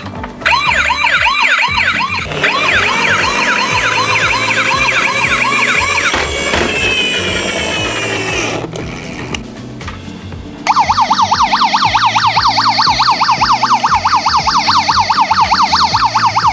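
Electronic emergency-vehicle siren, several rapid up-and-down siren patterns overlapping for the first few seconds, then a quieter pause. About two-thirds of the way in, a loud, very fast yelp starts, warbling up and down about six times a second.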